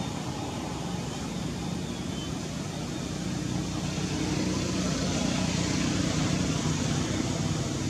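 A motor vehicle's engine running steadily, getting louder about halfway through as if drawing nearer.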